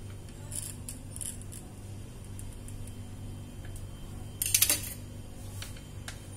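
Soft Oreo dora cakes being cut against a plastic tray, with a few light taps and clicks, and a short sharp clatter of hard objects knocking together about four and a half seconds in.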